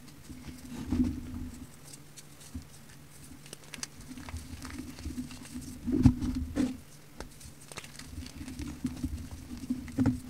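Crumbly coloured chalk and its powder crushed and rubbed between fingers: soft crunching and fine crackling as small lumps break and powder sifts down. Heavier crunches come about a second in, around six seconds in and at the very end.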